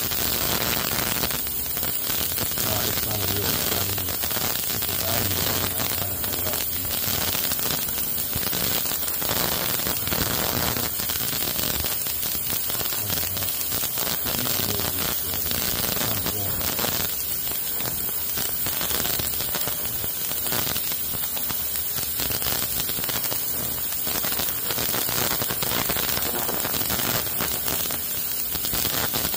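Ultrasonic parts cleaner running: a steady hiss with a low hum underneath.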